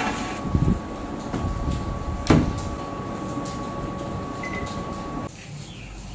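A metal baking pan set into a Panasonic countertop steam oven, the oven door shut with a sharp clack about two seconds in, then a short electronic beep as a button on its control panel is pressed. A thin steady whine runs underneath and cuts off suddenly near the end.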